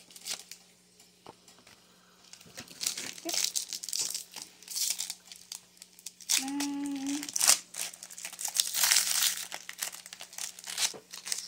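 Foil wrapper of a Pokémon booster pack crinkling and tearing as it is opened by hand, in repeated crackly rustles from a couple of seconds in.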